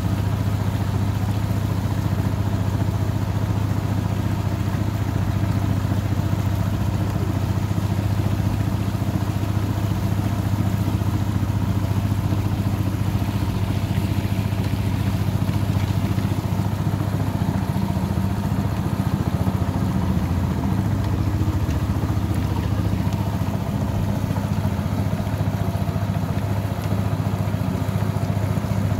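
A small wooden river boat's engine running at a steady speed, with a low, even tone.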